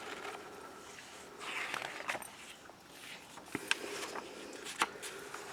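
Faint paper rustle of a picture book's page being turned, with a few light clicks from handling the book.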